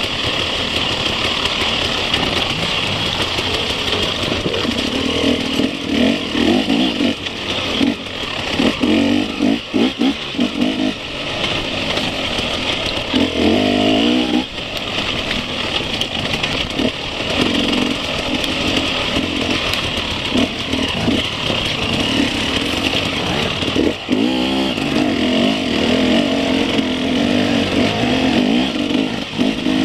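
Enduro motorcycle engine heard from on board while riding a dirt trail, revving up and down, its pitch rising and falling again and again as the throttle opens and closes.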